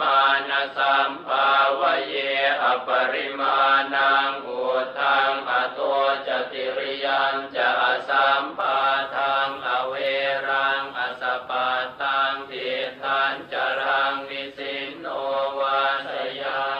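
Buddhist chanting in Pali: a steady, rhythmic recitation delivered syllable by syllable at an even pace.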